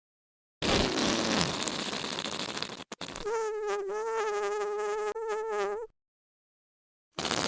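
Whoopee cushion sounds, one after another. First comes an airy, hissing rasp for about two seconds. After a brief break comes a steady, buzzing raspberry note lasting about three seconds. Another hissing one starts near the end.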